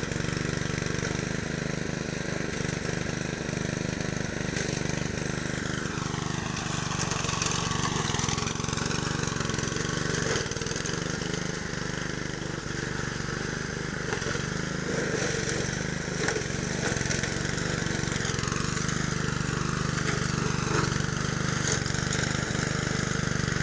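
Honda self-propelled walk-behind lawn mower's small four-stroke petrol engine running steadily.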